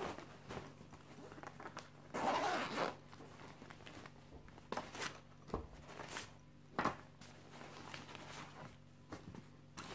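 Zipper of a canvas shoulder bag pulled open in one quick stroke about two seconds in, followed by a few sharp clicks and rustles as the bag and its contents are handled.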